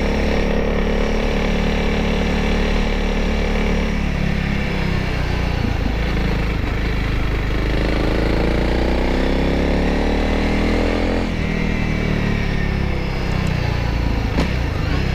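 Honda CRF300L's 286 cc single-cylinder four-stroke engine running on the road. Its pitch drops about four seconds in, climbs steadily for several seconds as the bike accelerates, then drops again, over a low rumble of wind on the microphone.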